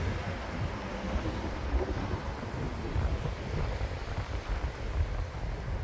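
Wind buffeting the microphone over the steady noise of cars driving past on a wet road.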